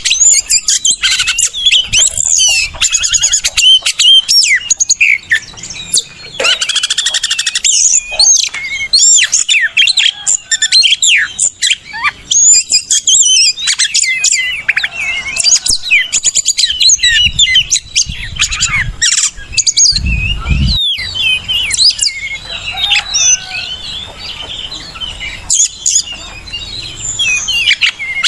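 Oriental magpie-robin (kacer) singing a loud, continuous, varied song of rapid whistles, chirps and harsher notes, used as a training and provoking recording for kept birds. A brief low rumble sounds under the song about two-thirds of the way through.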